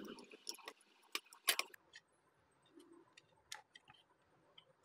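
Scattered small clicks and taps of plastic parts and wires being handled as the circuit board and buttons are fitted back into a Bluetooth speaker's opened plastic housing. The loudest clicks come about one and a half seconds in.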